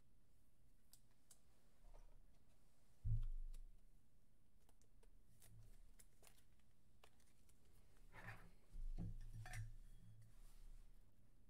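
Quiet handling noise: light clicks and rustling from trading cards and hard plastic card holders being moved and set on the table. A dull low thump comes about three seconds in, and a few more with rustling come near nine seconds.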